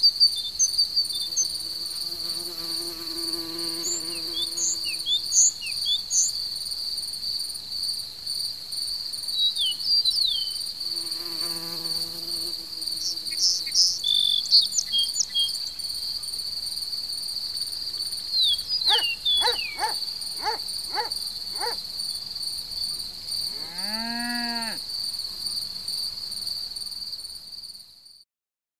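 Crickets trilling in a steady high-pitched chorus among grass, with small birds chirping over it. An insect's buzz drifts past twice, and later come a quick run of sharp notes and a short rising-and-falling call. The sound fades out near the end.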